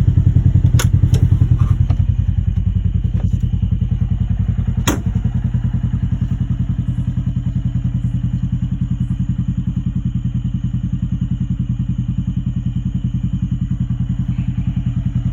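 Polaris Ranger side-by-side engine idling steadily, with a fast even pulse. Three or four sharp clicks come in the first five seconds.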